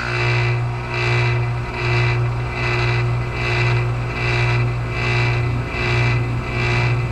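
Outdoor unit of a 1995 Carrier TECH2000 heat pump running in heat mode: a steady low compressor hum with the fan's whooshing tone wavering in loudness about twice a second.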